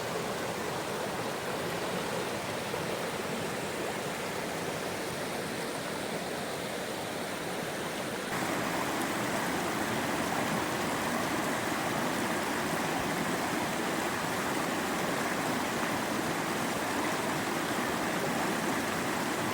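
Mountain stream rushing steadily. About eight seconds in the sound steps up abruptly to a slightly louder, fuller rush.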